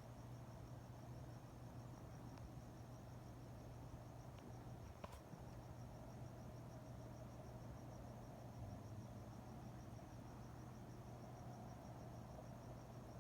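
Crickets chirping at night in a fast, even pulse, faint, over a low steady hum. A single faint click about five seconds in.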